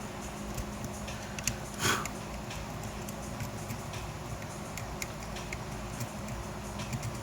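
Scattered light clicks and taps of small tools and parts being handled on an amplifier circuit board, with one sharper click about two seconds in, over a steady low hum.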